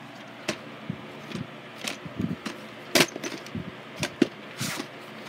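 VHS tapes in their cases being picked up and turned over by hand: a series of light, irregular clicks and knocks.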